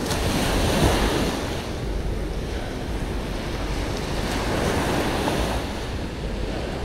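Ocean surf washing onto a sandy beach, swelling about a second in and again around five seconds, with wind rumbling on the microphone.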